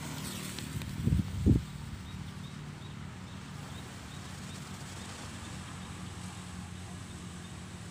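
A lit firecracker fuse fizzing faintly and steadily as it burns down, with two dull low thumps about a second in.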